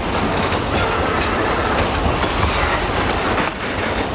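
Narrow-gauge passenger carriages rolling past at close range, their wheels clattering over the rail joints.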